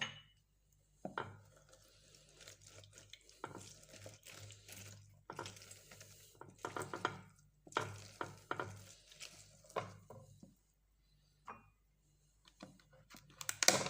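Orange halves being squeezed on a citrus juicer: irregular rubbing and squelching strokes with light knocks against the juicer, in uneven bursts, pausing briefly about ten seconds in before a louder burst near the end.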